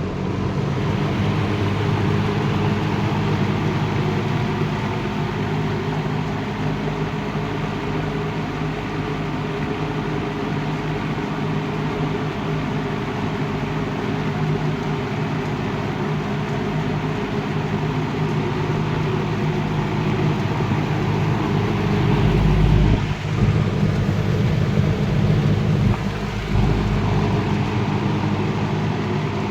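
1974 Lakewood model S23 box fan running on high speed: a steady rush of air over the motor's hum. Two brief low rumbles come about twenty-two and twenty-six seconds in.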